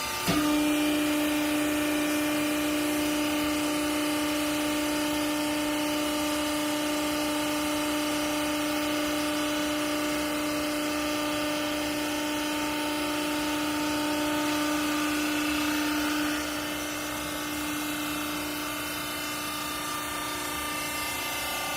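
Hydraulic clothes-baling press running, its pump motor humming steadily. A louder steady whine starts abruptly at the very beginning and cuts off about 16 seconds in.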